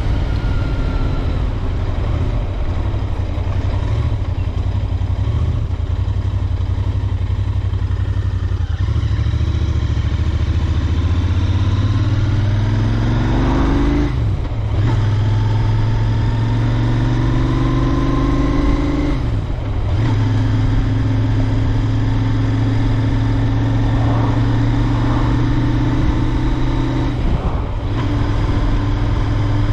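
Royal Enfield Interceptor 650's parallel-twin engine under way, running steadily at first. About halfway through it accelerates, the note rising, with three brief throttle-off dips as it shifts up through the gears.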